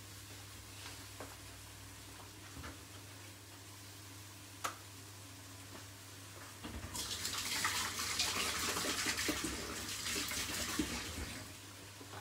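Kitchen tap running for about five seconds, starting a little past halfway and stopping near the end, over a steady low hum. A few light clicks come earlier.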